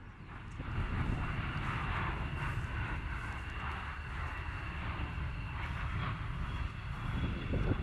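Jet aircraft engine noise, a steady rushing roar that builds about half a second in, with a thin high whine running through it.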